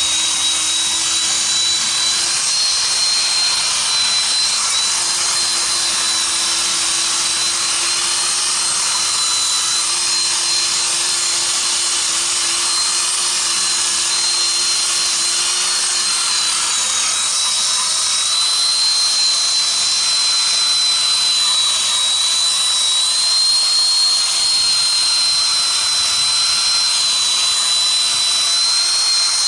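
Corded electric drill running at steady speed with a wire wheel brush scrubbing rust off a truck wheel rim: a steady high motor whine over a dense scratching hiss, preparing the wheel for paint.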